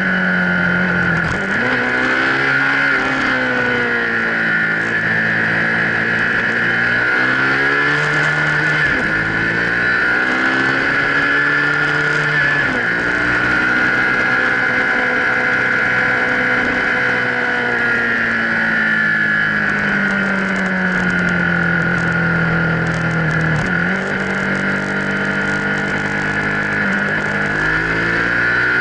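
Motorcycle engine under way, its pitch climbing and sagging with the throttle and dropping sharply at several gear changes, over a steady high-pitched rush of wind.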